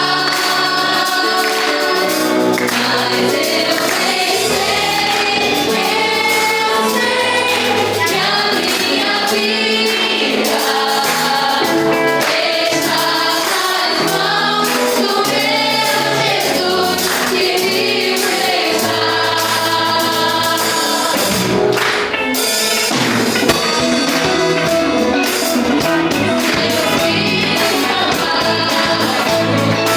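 A gospel worship band playing live, with several voices singing together over the band and a tambourine.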